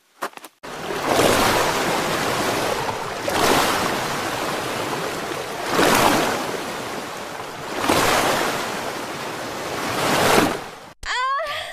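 Even rushing noise like surf on a shore, swelling and easing off about every two and a half seconds. Near the end it cuts off and a short falling tone follows.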